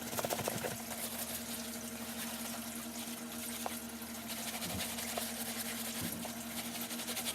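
Wet brush scrubbing on a sneaker with running water, over a steady low hum.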